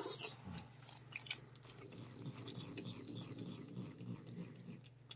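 A cat licking lickable Churu paste from a tube, with soft, wet licks in a quick, even rhythm of about three a second that set in about two seconds in.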